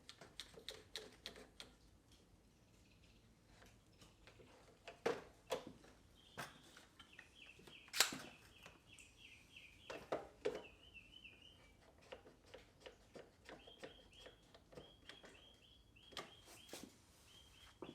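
A bird singing two runs of short, quickly repeated high notes, among scattered light clicks and taps, the sharpest about halfway through.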